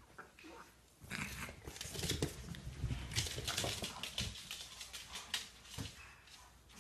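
French bulldog puppies at play, scuffling about, their claws clicking and pattering on a hardwood floor. The bustle starts about a second in and eases off near the end.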